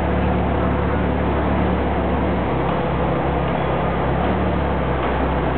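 Ferrari F355's 3.5-litre V8 idling steadily close by, with no revving.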